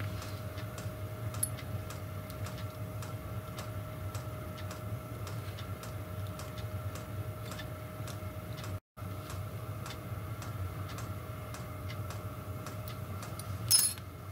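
Diesel heater clicking away steadily in the background, with a steady hum and faint whine under the ticks. The sound drops out for an instant in the middle, and near the end a small steel spanner gives one sharp metallic clink against the other tools.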